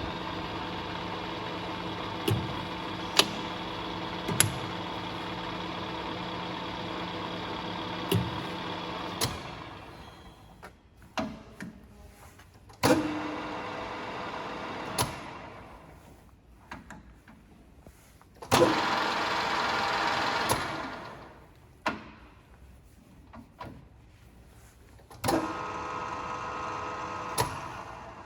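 Colchester Bantam metal lathe running under power, its motor and headstock gearing giving a steady whine for the first nine seconds before spinning down. After that it starts in short runs that coast down again, with sharp clicks and knocks between them, and it runs steadily again near the end.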